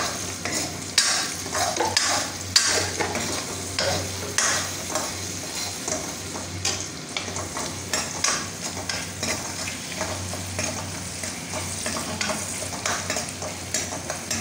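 Sliced onion, ginger and garlic frying in hot oil in a metal kadai, sizzling steadily while a steel spoon stirs and scrapes, with frequent clicks of the spoon against the pan. A steady low hum runs underneath.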